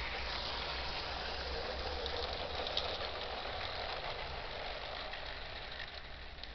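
O gauge model train, an Ace Trains Castle Class locomotive with its coaches, running along the track: a steady whirr of wheels and running gear on the rails with a few light clicks, slowly fading as the train moves away.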